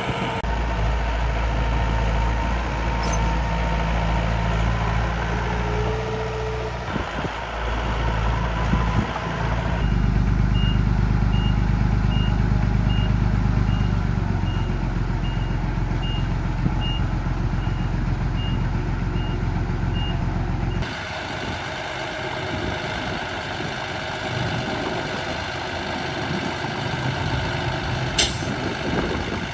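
Miniature radio-controlled dump truck running with a low, steady engine drone. For about ten seconds in the middle, a reversing alarm beeps evenly, roughly twice a second, then stops abruptly.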